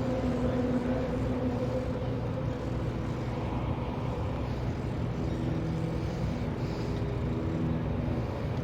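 A fishing boat's engine running steadily, a low droning hum whose pitch shifts slightly partway through.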